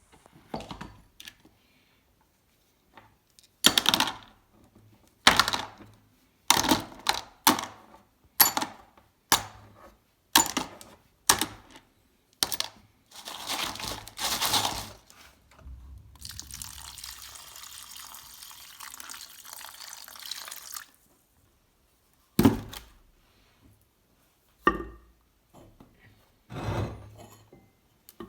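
A series of separate knocks and clatters as parts of a rusty bench vise and tools are handled and set down, with a steady hiss lasting about five seconds in the middle.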